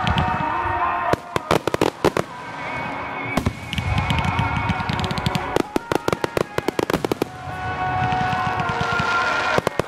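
Aerial fireworks crackling and popping in rapid clusters of sharp reports, with music playing in the background.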